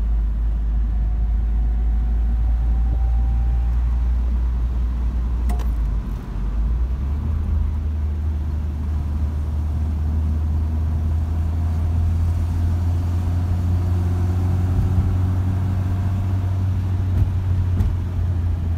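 Citroën DS23 Pallas four-cylinder engine and road noise running steadily, heard from inside the cabin while driving. About six seconds in the level dips briefly, and the drone comes back at a higher pitch.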